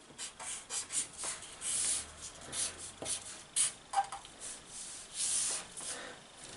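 A pen drawing a circuit diagram: a run of short scratchy strokes of varying length.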